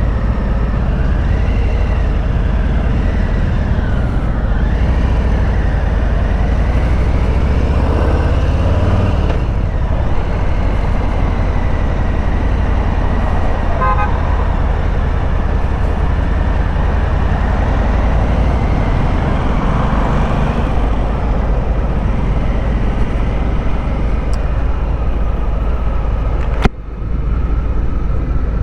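Harley-Davidson Street Bob's Milwaukee-Eight 114 V-twin running under way on a ride, a steady low rumble mixed with wind noise on the microphone. A sharp click and brief drop in level come near the end.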